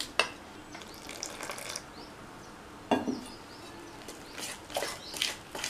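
A metal spoon stirring wet gram-flour and rice-flour batter in a stainless steel bowl as water is worked in, with a few sharp clinks of the spoon against the bowl, several of them together near the end.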